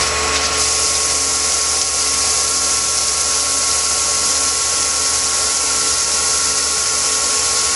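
Tormach PCNC 1100 CNC mill running a roughing pass in 6061 aluminium soft jaws: the spindle at 4000 RPM gives a steady whine under the hiss of flood coolant spraying onto the work. One whine tone drops out near the end.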